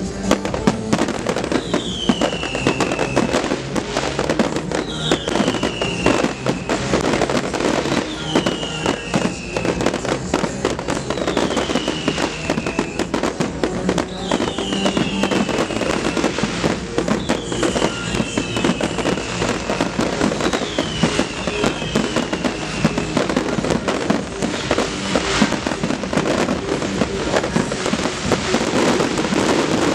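Fireworks display with aerial shells and fountains bursting and crackling in a dense, continuous barrage. Music plays along, and a high falling whistle repeats about every three seconds through the middle.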